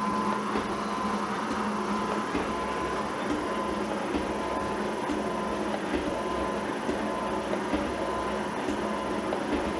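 G&E metal shaper running, its ram stroking back and forth as the tool takes a light cleanup pass on a block of cobalt high-speed steel. A steady motor and gear hum with small regular knocks from the stroke.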